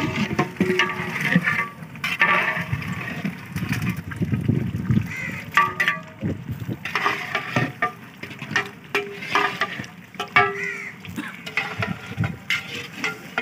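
A long metal ladle stirring and scraping a large aluminium cooking pot of curry, the thick gravy sloshing, with clanks of metal on metal. Voices talk in the background.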